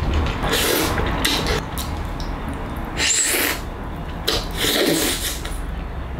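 Close eating sounds: a man sucking and chewing the meat off a braised chicken foot held in his fingers, in several short wet slurping bursts, with his fingers at his lips. A steady low hum sits underneath.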